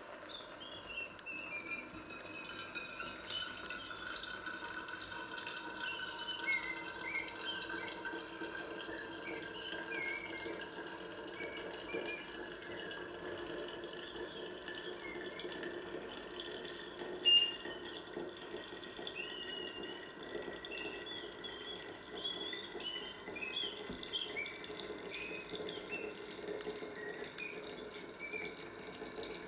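Hot water poured over ground coffee in a pour-over filter cone, the coffee trickling and dripping into the mug below, with a faint tone that slowly rises as the mug fills. One sharp clink about two-thirds of the way through.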